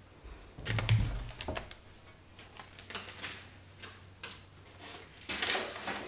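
Scattered knocks, clicks and rustles of someone moving about and handling things in a workroom, with a cluster of knocks and a low thud about a second in and a louder clatter near the end.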